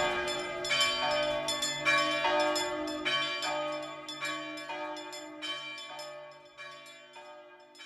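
Bell chimes striking a melody, about two notes a second, each note ringing on and the whole run fading gradually away.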